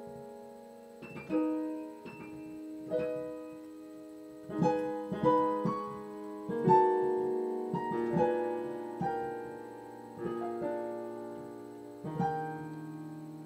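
Piano playing slow, held chords, each struck and left to ring, roughly one every one to two seconds.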